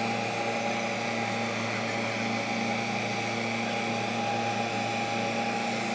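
JCB JS81 tracked excavator's diesel engine running steadily, with a steady high whine over it.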